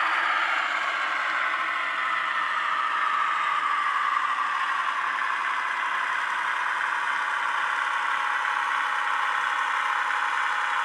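Diesel-hydraulic shunter engine sound played by the sound decoder and small sugarcube speaker in a Hornby Sentinel 0-6-0DH model locomotive as it runs slowly. It is thin, with no low end, and eases slightly in the first second before running steadily.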